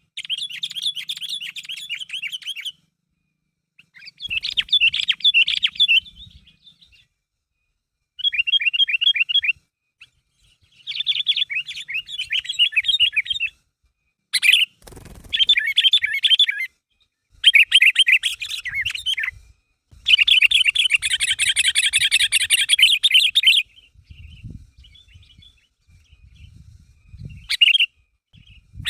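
Sooty-headed bulbul (kutilang) singing vigorously in rapid chattering phrases of one to three seconds, separated by short pauses. The longest and loudest run of song comes about two-thirds through. A brief low knock sounds about halfway.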